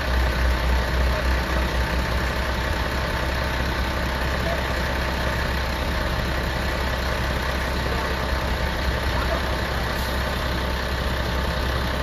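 Diesel engine of a wheel loader carrying a tyre-handler attachment, running steadily at idle with a deep drone, a little uneven for the first couple of seconds.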